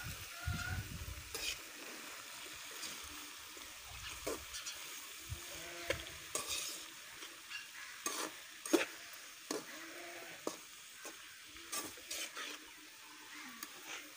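Sliced onions, tomatoes and green chillies sizzling in a metal pan while a metal spoon stirs them, scraping and clicking against the pan now and then.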